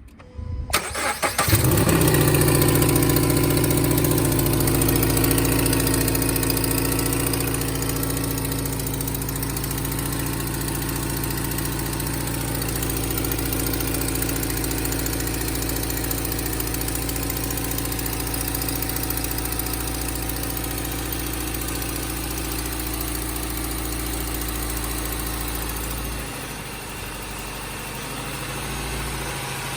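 Car engine cranking and catching about a second in, then running at a steady fast idle with a tapping noise like tappet noise. The noise is an exhaust leak at the exhaust manifold flange. Near the end the idle drops and the engine note settles lower.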